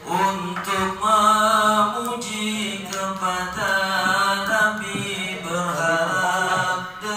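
Male voices singing a slow, chant-like Islamic devotional syair in Indonesian, in praise of the Prophet Muhammad.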